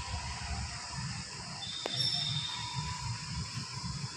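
Outdoor background noise: a steady low rumble, with a thin high whistle coming in about one and a half seconds in and a single click just after.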